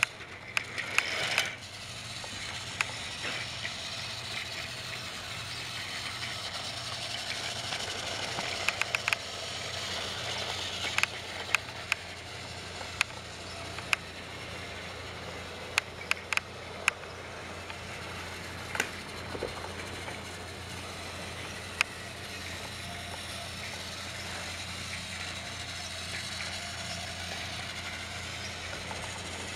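Trackmaster motorized toy trains running on plastic track: a steady small-motor and gear whirr, with scattered sharp clicks.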